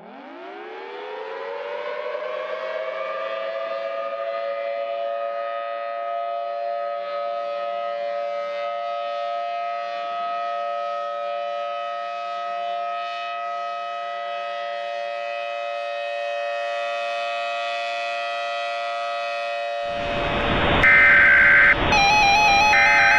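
A civil defence siren winds up from a low pitch and holds a steady two-note wail. About 20 seconds in it cuts to loud static and repeated short bursts of data tones, the header of the next emergency alert.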